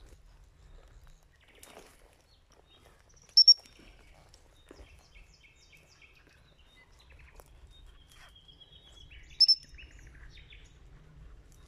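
Two short, loud blasts of a gundog whistle on one flat high pitch, the first a quick double pip a few seconds in and the second near the end. Faint birdsong chirps and trills in between.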